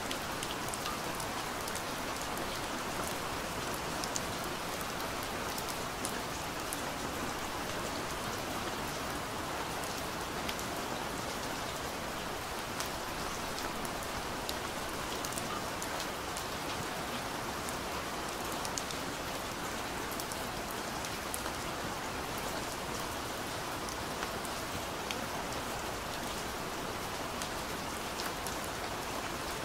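Steady rain falling: an even hiss with many scattered sharp drop ticks.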